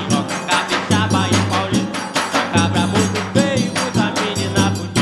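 Forró pé-de-serra band music with no vocals: an accordion melody over a steady beat of zabumba bass drum and triangle.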